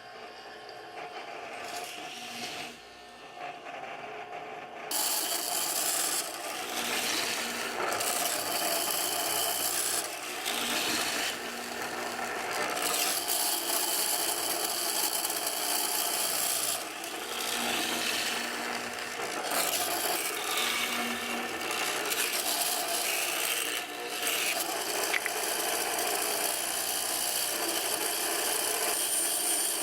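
Wood being worked with a hand tool: a continuous rough rasping and scraping on wood, coming in uneven strokes, starting about five seconds in.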